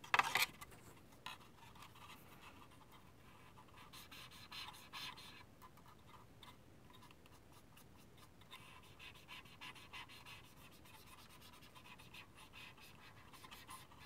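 Light scratching and rustling of hands working small hobby tools and a decal sheet on a modelling bench, with a short clatter right at the start and busier stretches about four seconds in and again past the middle.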